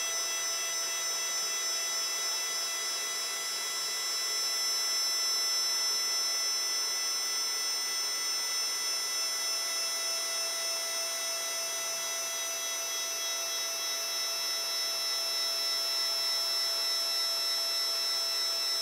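Protomaker 3D printer's Z-axis stepper motors driving the threaded rods, a steady whine made of several high pitched tones that swells slightly a few seconds in.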